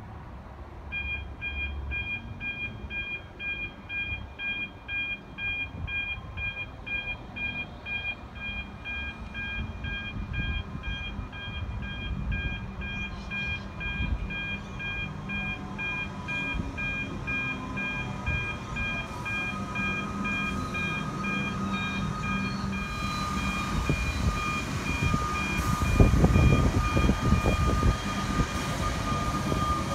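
Railway crossing warning bells ringing in a fast, even pulse while Melbourne Metro suburban electric trains work through the station. Partway through, an electric train's traction motor whine rises in pitch as it gathers speed. Near the end a train passes close, with loud wheel-on-rail clatter.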